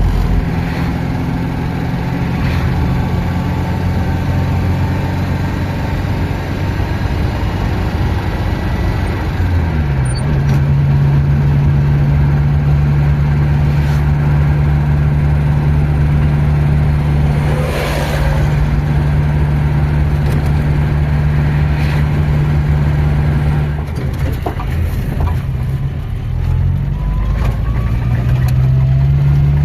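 An engine running steadily with a low hum. Its speed dips and picks up again about a third of the way in, then drops and climbs back up near the end.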